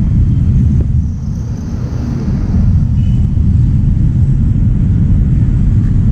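Wind buffeting the microphone on a moving motorcycle: a loud, steady low rumble with road and vehicle noise underneath.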